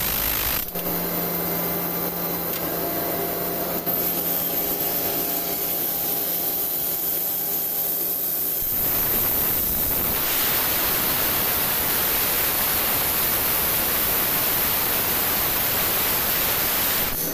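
Drilling rig boring a hole into the ground. For about the first half, a steady machine hum with a low drone sits under the drilling noise. From about nine seconds in, it gives way to a loud, even rushing hiss.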